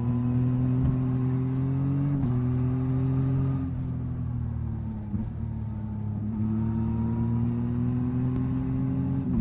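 Yamaha MT-09 SP's inline three-cylinder engine under way: pulling with rising revs, a drop in pitch from an upshift about two seconds in, a closed throttle with revs sinking around four seconds in, then a steady climb in revs again.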